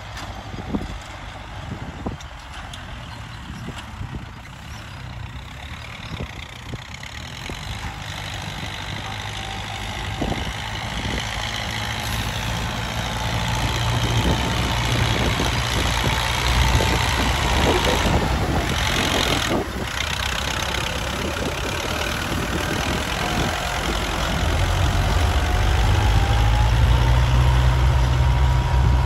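Kubota MU4501 tractor's four-cylinder diesel engine running under load as it pulls a tillage implement through the soil, growing louder in the second half. A faint whine above it slowly drifts up and down in pitch.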